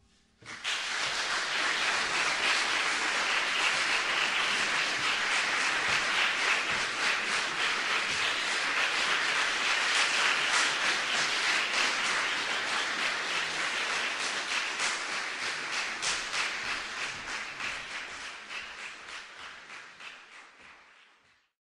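Audience applauding after a piano piece ends: steady, dense clapping that begins about half a second in and fades away gradually over the last several seconds.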